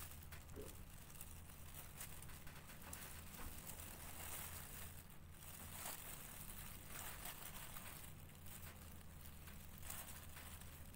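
Faint rustling and crinkling of loose plastic gloves and paper sheets as a newborn kitten is handled, with scattered soft clicks over a low steady hum.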